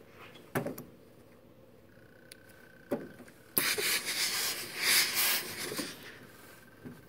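Steam iron releasing a jet of steam, an even hiss lasting about two and a half seconds from a little past the middle. Two short knocks come before it.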